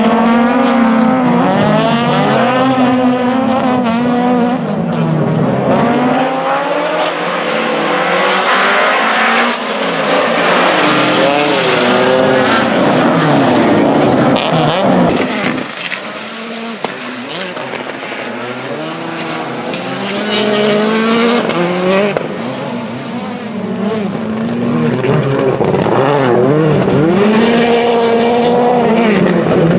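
Rallycross cars racing: several engines revving hard, their pitch rising and falling through gear changes and corners. The sound drops back somewhat about halfway through, then builds again.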